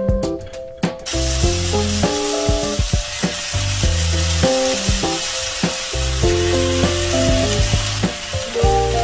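Julienned potato strips and minced garlic sizzling in hot oil in a frying pan, the sizzle starting suddenly about a second in and holding steady, with light background music.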